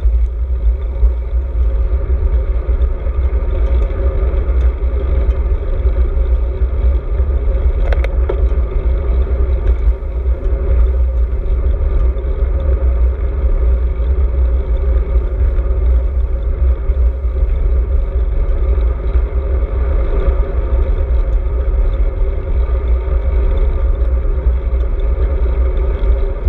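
Wind buffeting the microphone of a handlebar-mounted GoPro on a moving road bike: a loud, steady, low rumble that never lets up.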